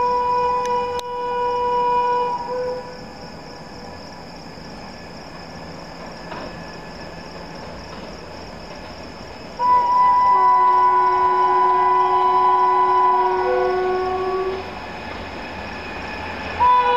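Approaching train's horn sounding three times: a blast that ends about two and a half seconds in, a long multi-tone blast from about ten seconds in lasting about five seconds, and another starting just before the end.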